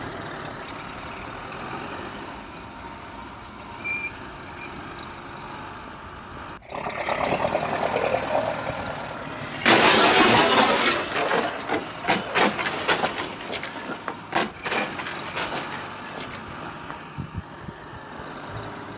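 Engine noise runs steadily and grows louder after about seven seconds. About ten seconds in, a loud clattering crash of wooden building blocks collapsing onto a toy tractor, followed by scattered knocks of blocks tumbling down over the next few seconds.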